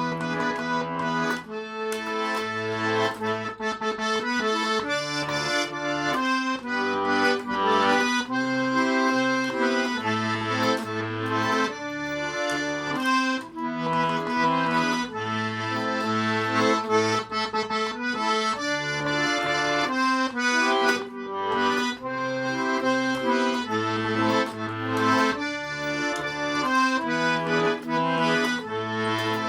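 Garmon (Russian button accordion) playing a song melody with sustained reedy notes over an alternating bass-and-chord accompaniment, with no singing.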